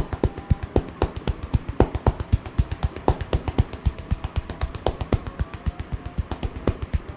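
Percussive massage: a barber's hands strike a person's head or back in a fast, even rhythm, about six slaps a second.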